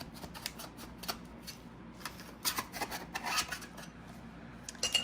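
A utensil scraping and clicking around the inside edge of a baking pan, loosening baked bars from its sides: a run of short scrapes, busiest in the middle.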